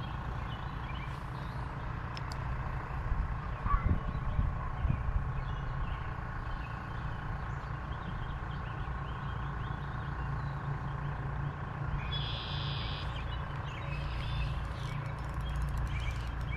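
Steady low outdoor rumble, with a few knocks about four seconds in and a bird trilling briefly about twelve seconds in.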